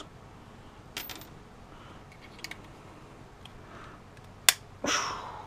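A few sharp clicks and small ticks from hand-dismantling small metal and plastic parts, with the loudest click about four and a half seconds in, followed by a short scraping rustle.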